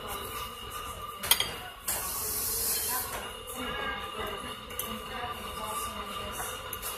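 Metal fork clinking against a ceramic plate while cutting food, with one sharp clink about a second in, over diner room noise and a brief hiss.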